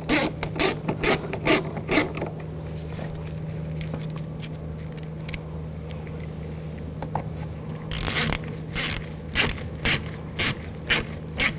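Hand ratchet clicking through short back-and-forth strokes while driving in door panel screws: a quick run of about six clicks, a pause, then about eight more near the end.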